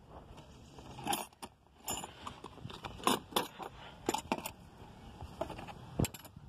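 Metal wrenches and sockets clinking and rattling against each other and a plastic socket-set case as a hand rummages through them, in irregular scattered clinks.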